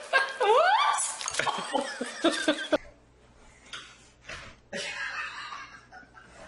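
Human vocal sounds and laughter without clear words, including one short call that slides down and back up in pitch. After a sudden cut comes a quiet room with a steady low hum and a few soft brushing sounds.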